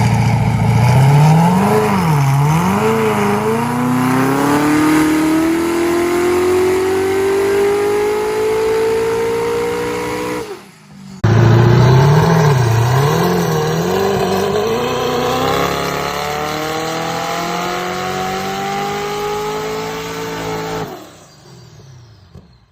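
Pickup truck engine revved in a few quick blips, then pulling away under acceleration with its pitch rising steadily for several seconds. After a brief break about ten seconds in, the same sequence is heard again: blips of revving, then a long rising pull that fades out near the end.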